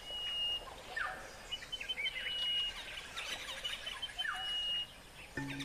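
Several birds calling over a faint outdoor hiss: busy chirping, one bird repeating a high held whistle about three times, and a short falling call twice.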